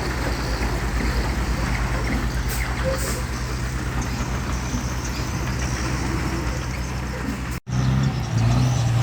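Diesel engine of heavy earthmoving machinery running with a low, steady throb. It cuts out abruptly near the end, and a louder engine note follows.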